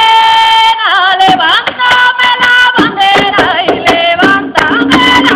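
Music: a high voice sings long held notes with a wavering vibrato, sliding between pitches. A steady lower note joins about four seconds in.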